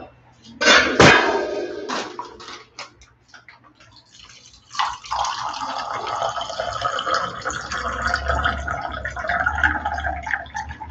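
A burst of handling noise about a second in, then water pouring in a thin stream from a plastic water sachet into a plastic cup. The pour starts about five seconds in and runs steadily.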